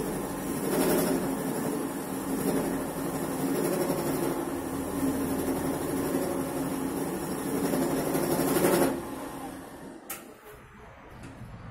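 Bench drill press running, its spindle turning a valve seat cutter in a Kawasaki KLX150 cylinder head, with a steady hum; it stops about nine seconds in, followed a second later by a single sharp click.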